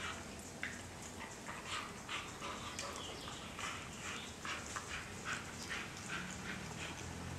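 A dog licking another dog's mouth and teeth: a run of short, wet licks and smacks, about two or three a second.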